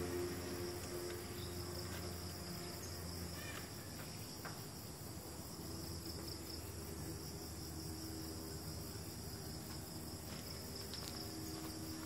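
Steady, high-pitched chorus of insects, crickets or similar, trilling without a break.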